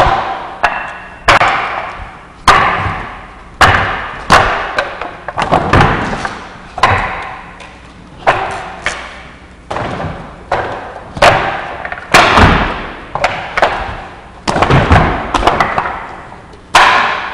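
Wing Chun wooden dummy (mook jong) struck by forearms and palms during the form: a series of sharp wooden knocks, about one a second with some in quick pairs, each with a short ringing tail.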